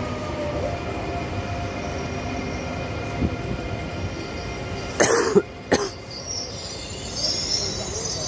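Railway station ambience: the steady hum of double-deck electric TER trains standing at the platforms. Two short sharp noises come about five seconds in, and a faint high squeal is heard near the end.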